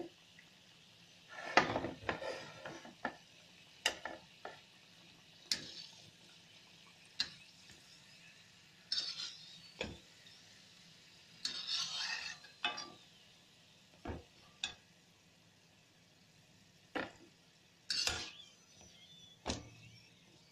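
Perforated steel skimmer clinking and scraping against a metal kadhai, in irregular knocks, as spring rolls are turned and lifted out of hot ghee, with faint sizzling of the frying underneath.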